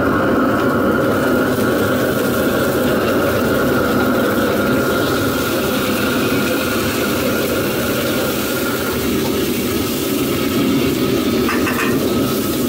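Restaurant gas wok burner running at high flame under a carbon-steel wok, a steady rushing noise that holds the same level throughout.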